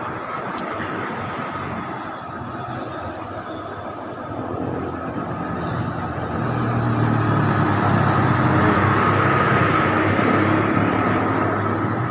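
A heavy vehicle's diesel engine labours up a steep grade, growing louder as it draws near and passes, loudest about two-thirds of the way through. A steady whine sits over the engine note and road noise.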